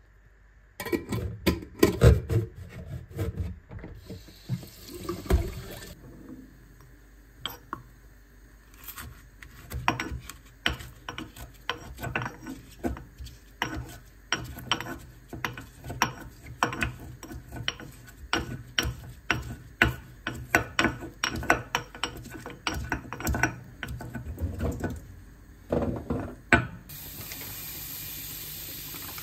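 Stone pestle pounding in a stone mortar: a steady run of sharp knocks, roughly twice a second. Near the end it gives way to a steady sizzle of butter melting in a frying pan.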